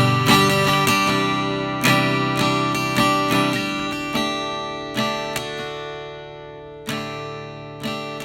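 Acoustic guitar music: chords strummed and left to ring, a new strum every second or so, growing quieter toward the end.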